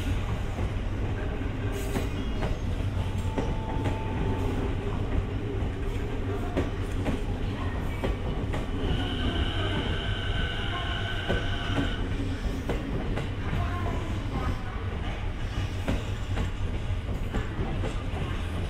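JR East E217 series electric train rolling slowly past over station trackwork, with a steady rumble and wheels clicking over rail joints and points. A brief squeal comes about four seconds in, and a louder, high steady squeal runs for about three seconds from roughly nine seconds in.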